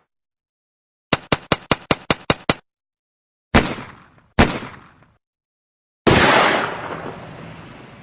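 Cartoon action sound effects. About a second in comes a rapid run of eight sharp shots, machine-gun style. Two single heavy bangs follow near the middle, then a big explosion about six seconds in that dies away slowly.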